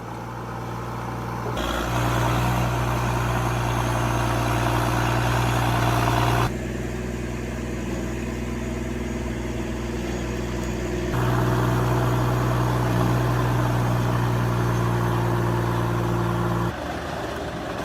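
Heavy diesel machinery engines running steadily with a deep hum. The sound jumps abruptly every few seconds, as between spliced clips of the machines at work.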